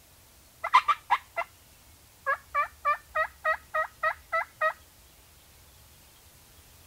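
Turkey calling: a quick run of four or five sharp notes, then a series of nine evenly spaced yelps, about four a second, each note breaking from high to low.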